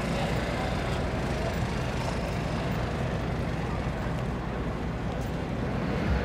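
Steady outdoor ambience at a crowded airfield: a constant low rumble with the murmur of distant voices.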